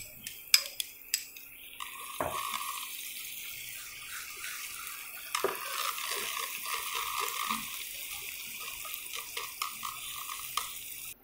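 A few clicks of chopsticks against the plate and pan, then oil sizzling steadily from about two seconds in as chopped red chilies fry with minced garlic, stirred with chopsticks.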